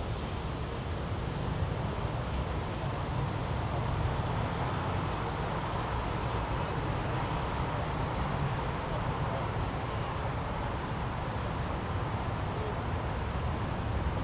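City street ambience: road traffic running past steadily, a broad even rumble with a slight swell in the middle.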